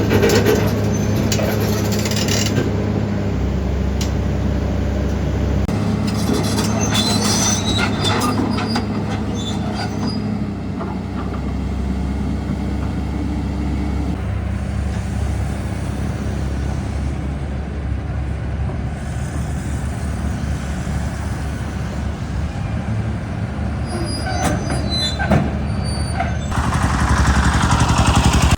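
A heavy diesel engine running steadily, its note shifting a few times, with scattered metallic clanks and squeaks. It grows louder near the end.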